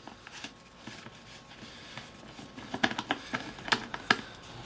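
Phillips screwdriver clicking and tapping at the screw of a dirt bike's plastic air-filter box cover. There is a scattering of sharp clicks from about halfway through.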